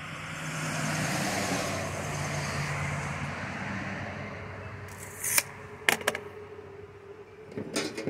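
A road vehicle passing by: a broad rumble with a low engine hum that swells and then fades away. A few sharp clicks follow, about five and six seconds in and again near the end.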